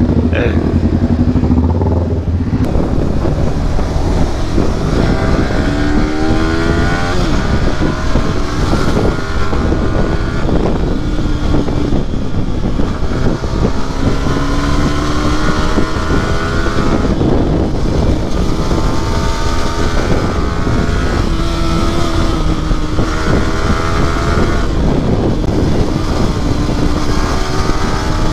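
Yamaha R15 V3's single-cylinder engine idling briefly, then pulling away and accelerating hard through the gears. The engine note climbs, drops back at each upshift and climbs again, over steady wind and road noise.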